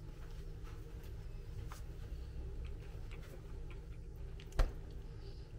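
Quiet room tone: a steady low hum with a few faint ticks, and one short, sharp knock about four and a half seconds in.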